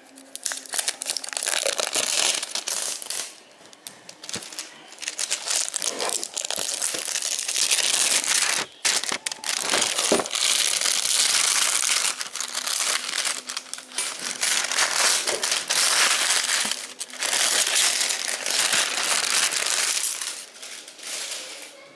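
Clear plastic shrink-wrap being peeled and torn off a cardboard Blu-ray box set, crinkling in long bursts of a few seconds with short pauses between them.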